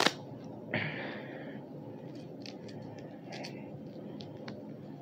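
Faint handling noises: a short loud scrape right at the start, a brief rustle about a second in, then a few light clicks and taps over a steady low background hiss.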